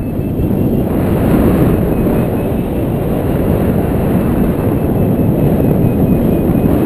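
Wind rushing over an action camera's microphone in paraglider flight: a steady, loud low rumble of airflow buffeting.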